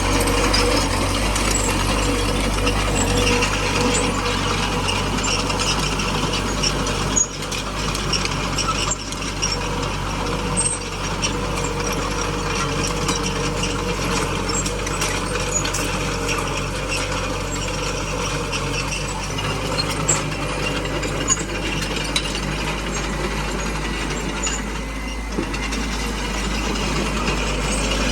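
Small crawler bulldozer working: its diesel engine runs steadily under a constant low hum while the steel tracks and blade gear give a continuous metallic clicking and clatter.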